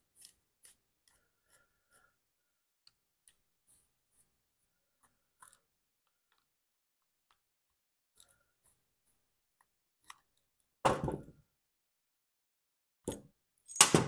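Small metal clicks and scrapes from a screwdriver working the screws of a Walbro chainsaw carburetor and from handling its parts, then a few louder knocks near the end.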